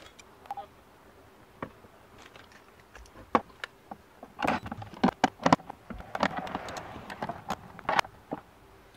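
Irregular metallic clicks and taps of a hand tool and nuts as bolts are tightened through the wall of a hard plastic case. They are sparse at first and come in quick clusters in the second half.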